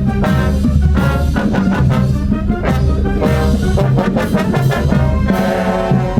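High-school marching band playing: held brass notes over a bass line, with drum strikes on a steady beat.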